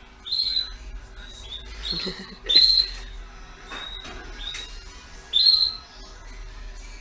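Caged birds chirping: sharp, high calls every two to three seconds, with softer chirps between.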